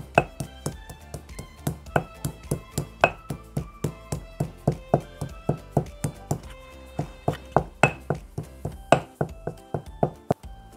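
Stone pestle striking the bottom of a heavy stone mortar, pounding whole black pepper, about three sharp knocks a second that thin out near the end. Background music plays underneath.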